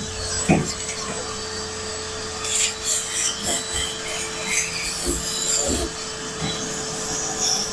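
Irregular scraping and rubbing with scattered clicks and knocks as dryer sheet-metal parts and debris are handled, over a faint steady hum.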